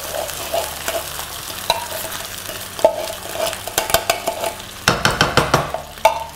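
Canned coconut milk poured into a hot wok of fried onions and spices, the pan sizzling, with clinks and scrapes of the tin and spatula in the pan, loudest about five seconds in.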